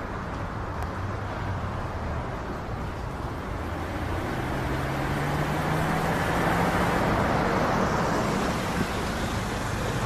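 Road traffic ambience: a steady hum of passing cars, with one vehicle passing close that grows louder past the middle of the stretch, its engine note rising slightly as it goes by.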